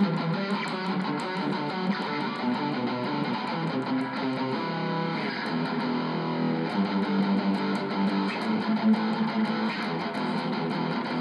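Distorted electric guitar playing chugging metal riffs through a small closed-back guitar cabinet, low notes picked steadily with little top end, a sound the player finds boxy and not quite right for the cab's small size.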